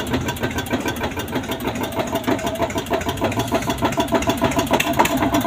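Eicher 242 tractor's two-cylinder air-cooled diesel engine running with a steady, even firing beat, having started on the first try.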